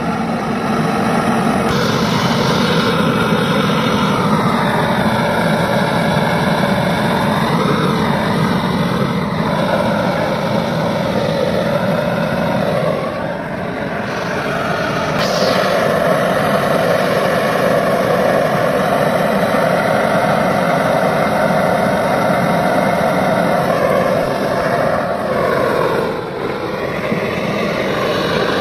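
Hand-held gas blowtorch burning steadily as it is played over a radiator core, a continuous rushing flame noise whose pitch wavers as the torch moves, dipping briefly about halfway and near the end.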